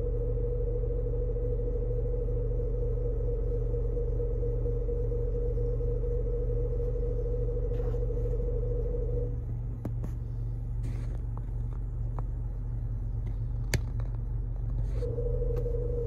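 Car idling at a standstill, heard from inside the cabin: a steady low rumble with a steady mid-pitched hum over it. The hum cuts out about nine seconds in and comes back near the end, and a few light clicks sound in between, one sharp click about fourteen seconds in.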